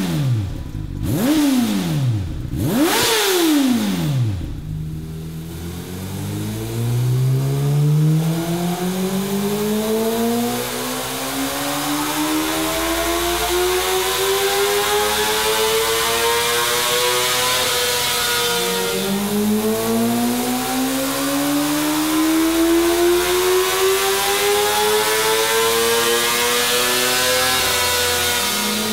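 Honda CBR600RR inline-four engine on a dyno, breathing through an Arrow carbon slip-on exhaust: two quick throttle blips, then a long full-throttle pull with the engine note climbing steadily. About 18 seconds in the revs drop sharply and then climb again in a second pull.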